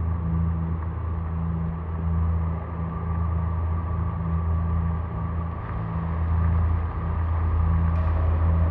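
A vehicle engine running with a steady low drone under the even hiss of heavy rain.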